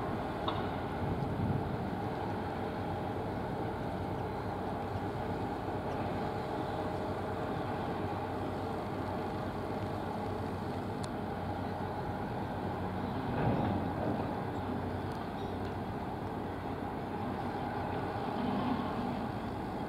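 Steady rumble of distant engines with a faint steady hum, swelling briefly about two-thirds of the way through.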